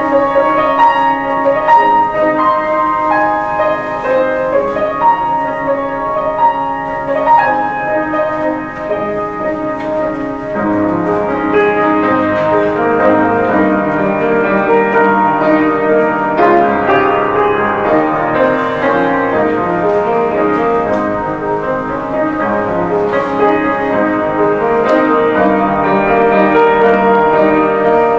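Grand piano played solo, with clear melodic notes at first. About ten seconds in, the playing turns to fuller, lower chords.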